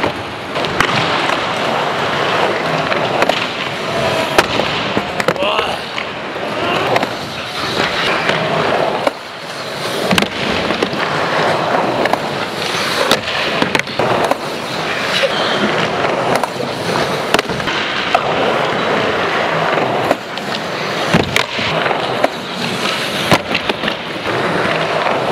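Skateboard wheels rolling on the ramps of an indoor skatehall, with repeated sharp clacks of the board slapping down and hitting the ramp as kickflip attempts are bailed.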